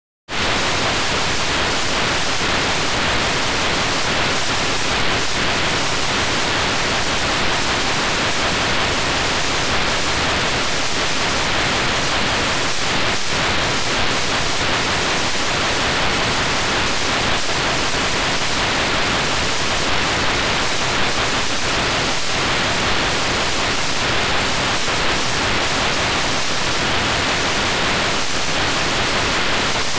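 TV static: a steady, even hiss of white noise with faint crackles here and there, the sound of a television that has lost its signal.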